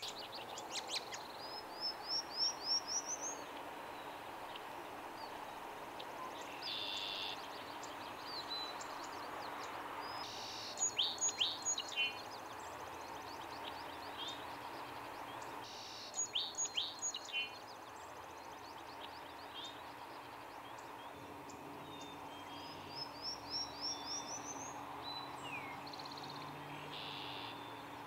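Prairie warbler singing: a quick series of short notes climbing steadily in pitch, heard twice, a few seconds in and again near the end. Other songbirds sing louder, separate phrases in between, over a steady hiss of outdoor background noise.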